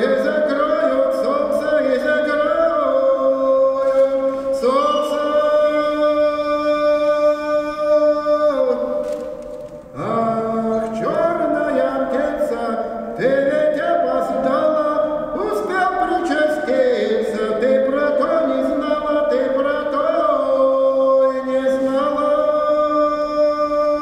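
A man singing solo and unaccompanied, a slow Russian song in long drawn-out notes, with a short break for breath about ten seconds in.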